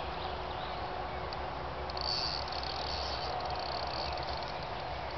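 Outdoor pond ambience: a steady low rumble with faint bird chirps, and a high, rapidly clicking buzz for about a second and a half starting about two seconds in.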